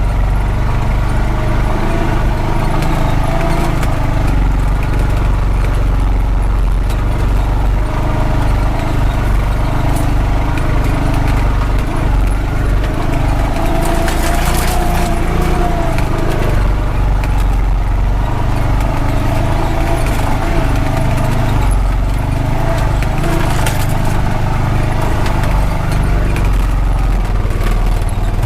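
Honda Pioneer 520 side-by-side's single-cylinder engine running steadily as it drives up a rough dirt road, its pitch wavering with the throttle. A couple of brief knocks or rattles come about halfway and about three-quarters through.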